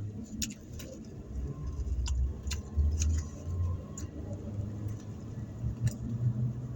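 Chewing a burger with scattered wet mouth clicks, over the low steady rumble inside a car.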